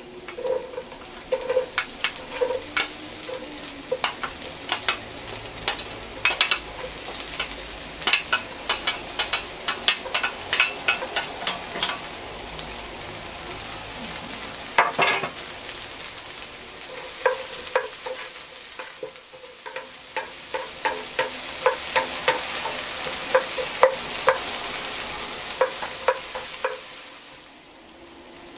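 Chopped green onions sizzling in oil in a nonstick frying pan while being stirred, with frequent clicks and taps of the stirring utensil against the pan. The sizzle grows louder about three quarters of the way through.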